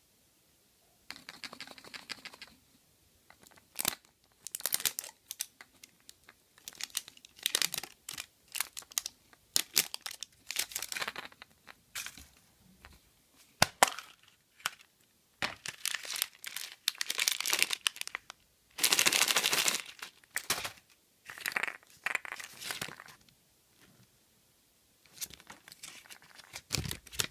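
Foil and plastic wrapping of a large surprise egg being torn and crinkled by hand, in irregular spells of ripping and rustling with a few sharp cracks.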